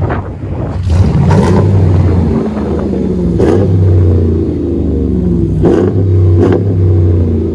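Dodge Ram 1500's 5.7L HEMI V8 running loud through an aftermarket dual exhaust with 2 1/4-inch mandrel-bent pipe, the throttle blipped several times so the note rises and falls over a steady idle.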